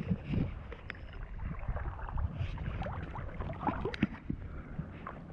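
Choppy shallow bay water lapping and sloshing around waders' legs, with small scattered splashes and a low rumble of wind on the microphone.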